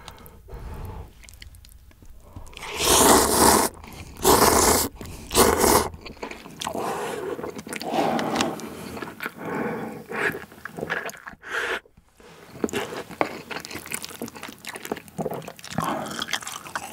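Close-miked slurping and chewing of Jjapaghetti black-bean-sauce instant noodles: three loud slurps a few seconds in, then steady wet chewing with small smacks.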